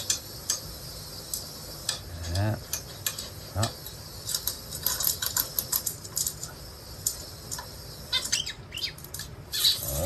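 Lutino cockatiel shifting about on a wooden playstand, making scattered light clicks and taps, then a short flurry of wing flaps as it takes off near the end.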